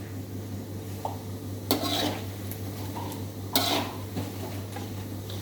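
A metal utensil clattering and scraping against a cooking pan twice, as if turning the food, over a steady low hum.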